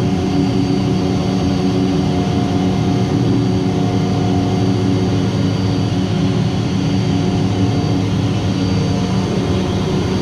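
Steady drone of running plant machinery, with a constant hum of several tones that neither rises nor falls.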